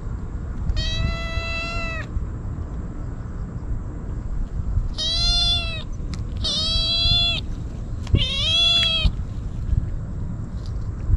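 Black-and-white stray kitten meowing four times, each meow close to a second long. The last meow rises in pitch at its start.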